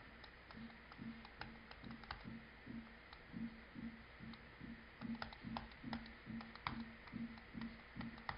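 Faint clicks and taps of a stylus writing on a tablet screen, with a soft low pulse repeating a little more than twice a second underneath.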